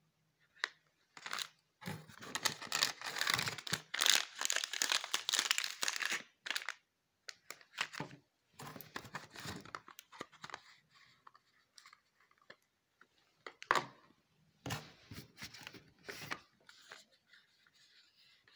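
Product packaging being handled: a foil-wrapped soap bar crinkling and cardboard boxes rustling, in irregular bursts. It is densest over the first few seconds, then comes in scattered rustles.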